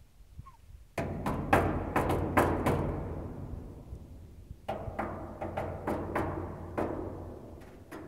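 A series of sharp bangs that boom and echo inside the rusted sheet-metal cone of a teepee-shaped waste-wood incinerator (wigwam burner). About half a dozen come in quick succession starting a second in, and a second run follows about halfway; each dies away in a long reverberation.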